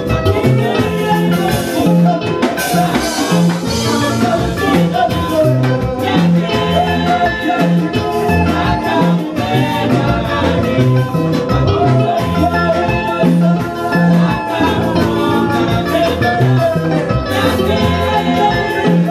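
Gospel choir singing a Swahili song into microphones over a live band, with a bass line and a steady dance beat.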